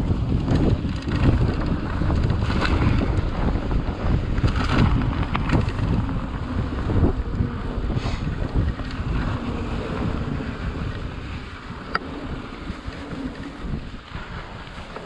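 Wind buffeting the microphone of a mountain bike camera while riding, over the rolling of the tyres on a dirt trail, with a few short clicks and rattles. The rush gets quieter over the last few seconds.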